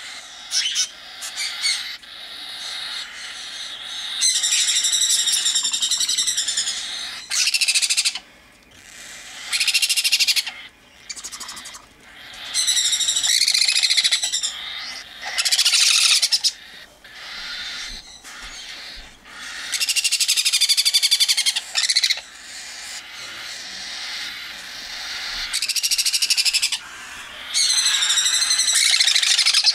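Baby sun conures and cockatiels begging for hand-feeding formula: loud, wavering, raspy food-begging calls in repeated bursts of one to three seconds with short pauses between.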